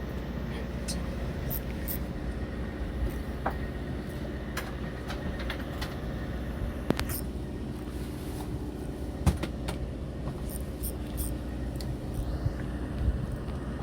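A fishing boat's machinery runs with a steady low rumble and hum while it lies on the water. Scattered light clicks and knocks sound now and then, the loudest about seven and nine seconds in.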